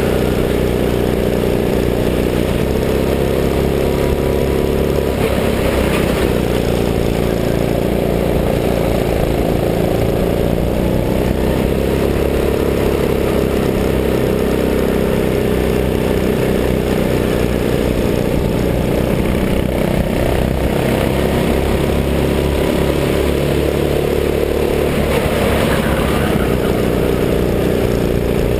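Go-kart engine running hard right behind the driver, its pitch rising and falling as the kart accelerates out of corners and eases off into them.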